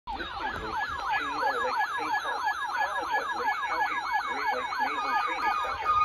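Timex T463G clock radio's weather-band alert siren going off for a Special Marine Warning: an electronic warble sweeping rapidly up and down, about four times a second, that gives way near the end to a steady tone.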